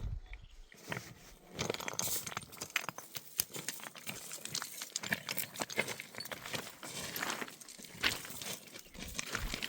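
Irregular rustling and crunching with many small clicks scattered throughout.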